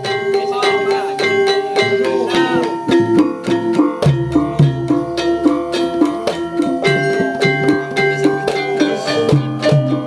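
Instrumental music with plucked-string melody and regular percussion strikes keeping a steady beat.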